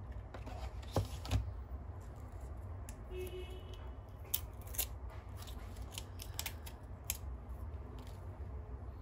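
Handling noise from a new smartwatch's protective plastic wrap and film being peeled off: a run of sharp clicks and crinkles, with two louder knocks about a second in and a brief squeak around three seconds in.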